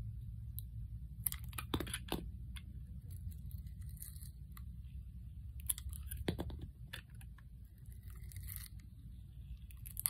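Utility-knife blade slicing through a bar of painted soap, with sharp crackling clicks as the blade cuts in and slabs break away, clustered about a second and a half in and again about six seconds in.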